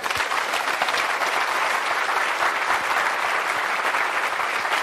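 A lecture-hall audience applauding at the end of a talk: many people clapping together, beginning just after the speaker's closing "thanks" and keeping up steadily.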